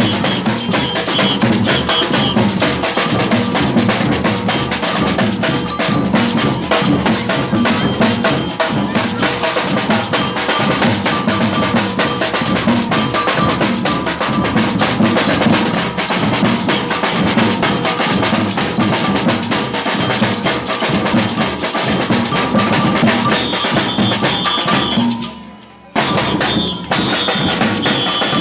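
Batucada percussion band playing drums in a steady samba rhythm. The sound drops out briefly near the end, then resumes.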